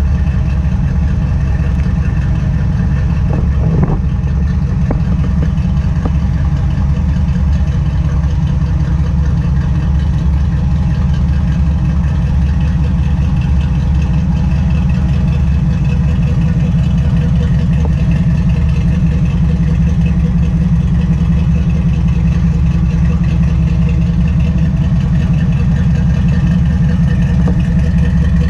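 Dodge Dakota R/T's 410 cubic-inch stroker V8 idling steadily with a deep exhaust note while warming up from a cold start.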